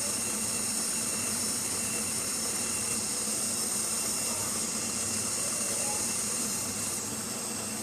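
Electric mixer running steadily, beating cake batter until smooth: a constant hiss with a few faint steady tones.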